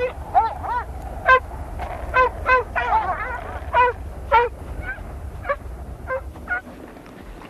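A pack of wolves whining and yelping as they jostle together: about a dozen short, high calls, each rising and falling in pitch, thinning out after about six seconds.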